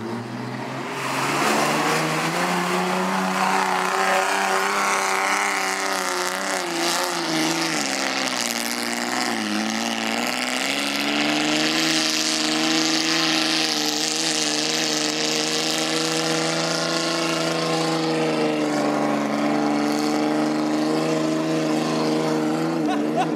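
Off-road buggy engine held at high revs under full load as it climbs a steep sand hill, its pitch sagging about nine seconds in and then climbing back and holding. A steady hiss runs over the engine.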